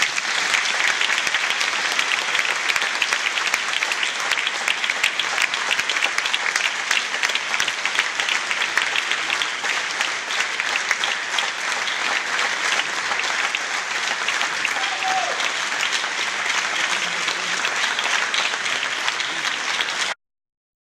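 Audience applauding: a dense, steady patter of many hands clapping that cuts off abruptly near the end.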